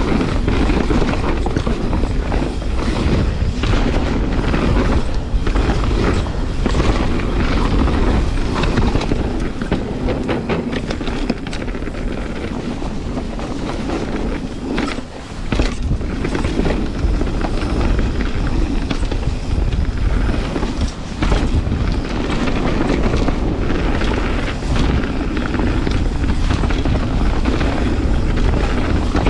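Mountain bike riding fast down a dirt trail: steady wind rush over the microphone with tyre roar and frequent rattles and knocks from the bike over rough ground.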